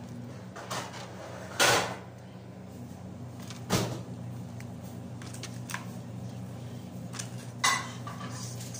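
Three sharp knocks on a hard work surface, a few seconds apart, with fainter taps and rustles between, as pastry triangles are handled on a counter and wooden tray; a steady low hum runs underneath.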